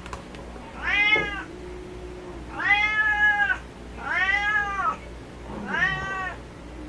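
A house cat meowing four times, each call rising then falling in pitch, the second one the longest: the cat crying for food.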